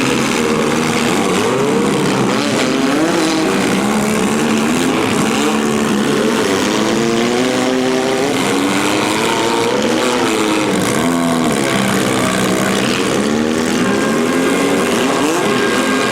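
Several compact cars' engines revving hard at once during a demolition derby heat, their pitches rising and falling over one another.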